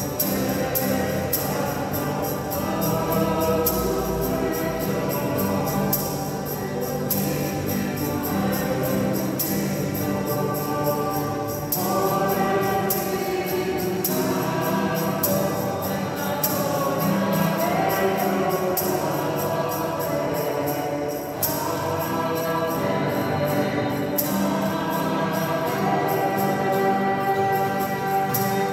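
Church choir singing a hymn with instrumental accompaniment and a steady beat.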